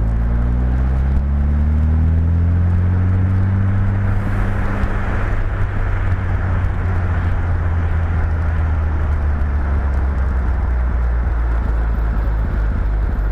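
Westfield SEiW kit car engine rising in pitch through the revs over the first few seconds, then running at steady revs, with a hiss of wind or road noise in the middle.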